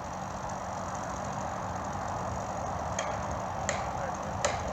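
An engine running steadily, with sharp knocks starting about three seconds in and repeating roughly every three quarters of a second.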